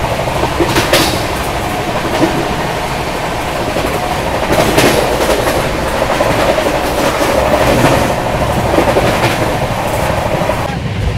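Brahmaputra Mail express train running, heard from on board: a steady rumble and rush of air with a few sharp clacks of the wheels over rail joints. A faint thin whine joins about halfway through.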